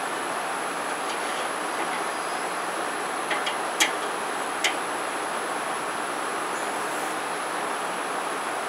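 Boudin burger patties sizzling on a charcoal kettle grill, a steady hiss, with a few sharp clicks of metal tongs against the grate about halfway through.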